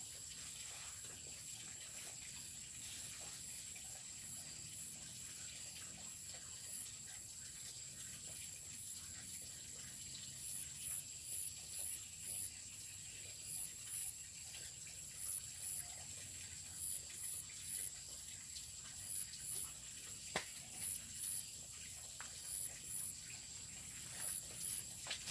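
Insects in a rice paddy: a steady high-pitched drone, and from about ten seconds in, short high chirps in quick groups of two to four. A few faint clicks are heard, one sharper near the twenty-second mark.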